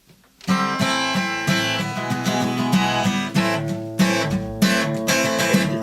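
Instrumental introduction of a worship song, led by strummed guitar, starting suddenly about half a second in.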